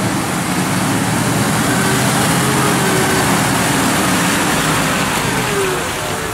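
Jeep Wrangler TJ's engine running as it crawls through mud and puddles, its tyres splashing through the muddy water. The sound grows louder as the Jeep comes close and eases off near the end.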